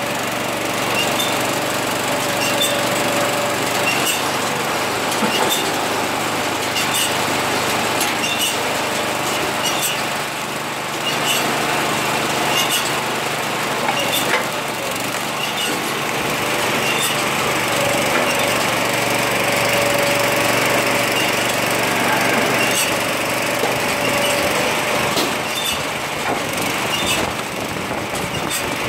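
Small engine running steadily to power a hydraulic log splitter, with scattered sharp cracks and knocks as rounds of wood split and the pieces fall onto the conveyor.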